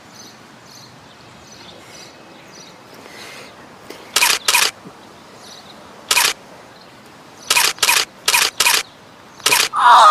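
Camera shutter firing eight times in quick runs from about four seconds in, each a short whirring click.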